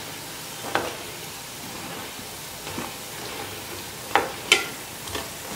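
Sticks of maida dough for petha deep-frying in hot oil, sizzling steadily, while a perforated metal frying spoon turns them and clinks against the pan: once about a second in and twice close together about four seconds in, the last clink the loudest and briefly ringing. The frying is nearly done, and the bubbling is being left to die down so the thick sticks cook through.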